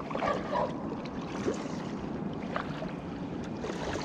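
Water splashing and lapping around a sit-on kayak as it is paddled, with wind on the microphone and a few faint clicks.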